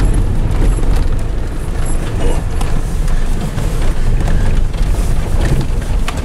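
Cabin noise of a 2016 Chevrolet Tahoe driving over a rough, rutted dirt road: a steady rumble of engine and tyres, with frequent knocks and rattles as the body jolts over bumps.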